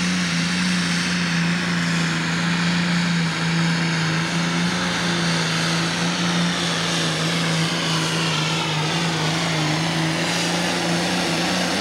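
John Deere pro stock pulling tractor's turbocharged diesel engine running flat out under load as it drags a weight-transfer sled, holding one steady high-rpm pitch throughout.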